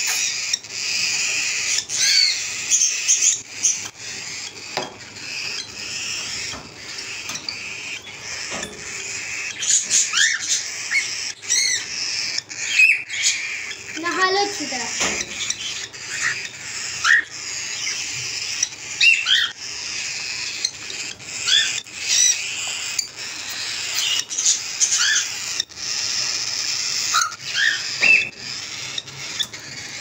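Cockatiels chirping and chattering, many short rising calls over a constant background chatter, with beaks clicking against a plastic feeder bowl and cage wire. One lower, wavering call comes about halfway through.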